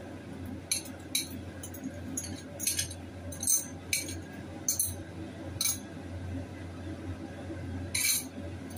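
A spoon clinking and scraping against a small bowl as beaten egg is scraped out into a frying pan: a string of sharp, irregularly spaced clinks, the loudest near the end, over a low steady hum.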